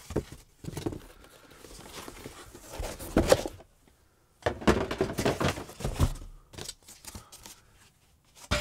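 Cardboard box and foam packaging being handled as the box sleeve is slid off and the boxed video switcher is uncovered in its foam tray. It comes as irregular rustling, scraping and knocking, with a short pause about four seconds in.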